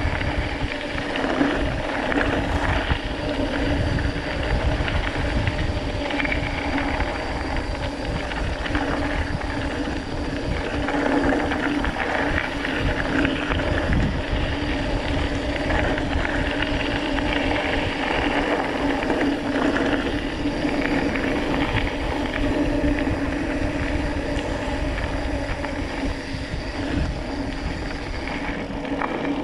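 Mountain bike rolling fast downhill on a loose gravel road: tyres crackling over stones and the bike rattling, with wind rushing over the microphone.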